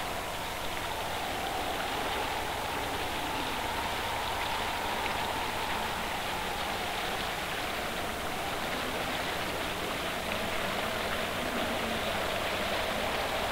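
Steady rushing noise, even throughout, with a faint slowly wavering tone running through it.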